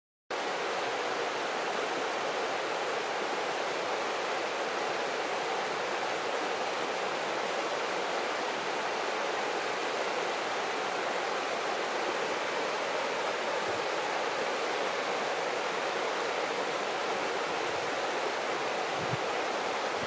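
Shallow river running over stones: a steady, even rush and babble of water.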